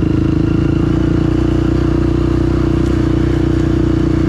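ATV engine running steadily at constant revs, a loud, even drone with no revving.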